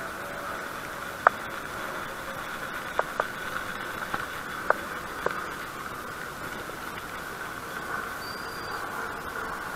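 Steady traffic hum with a handful of sharp clicks from handling a spincast fishing reel, clustered between about one and five seconds in.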